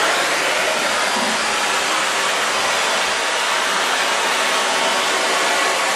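Canister vacuum cleaner running steadily, its floor nozzle pushed over a wooden floor.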